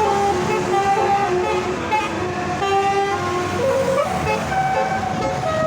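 A tour bus's Basuri multi-tone "telolet" horn playing a tune: a run of held notes that step up and down in pitch, one after another.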